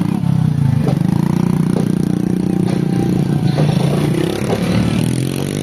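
Motorcycle engine running steadily, then revving up near the end.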